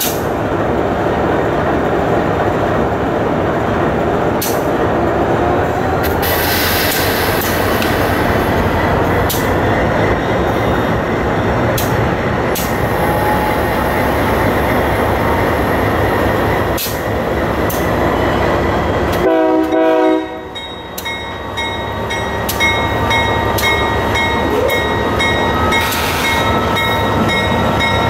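Union Pacific GE AC44CW diesel-electric locomotive running hard to restart a stalled heavy freight train on a grade. A short horn blast sounds about two-thirds of the way through. After it a thin rising whine comes in as the locomotive begins to creep forward.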